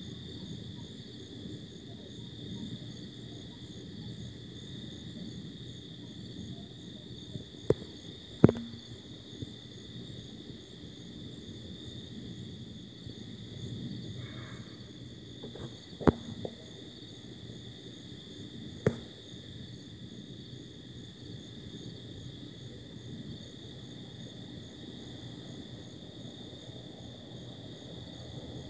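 Night-time crickets chirping in a steady high trill, with a few sharp clicks: two close together about eight seconds in, one near the middle and one a few seconds later.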